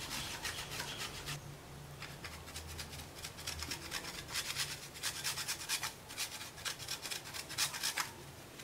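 A block of mozzarella cheese being grated on a flat stainless-steel hand grater: a quick run of rasping scrapes, stroke after stroke, with brief pauses about two and six seconds in.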